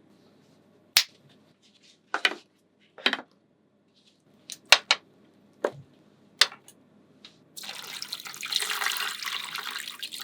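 Small magnetic balls clicking sharply as they snap together, in about seven separate clicks. About seven and a half seconds in this gives way to a dense, continuous clattering rattle of many balls knocking together.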